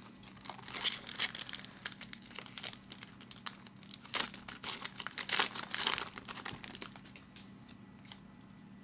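Wrapper of a hockey trading card pack being torn open and crinkled by hand: irregular crackling from about half a second in, with louder bursts of crinkling a little past the middle, dying away near the end.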